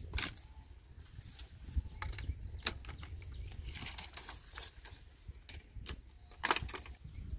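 Irregular rustles and crackles of leafy brush and twigs being grabbed and pushed aside by hand, with occasional crunches of steps on loose stones.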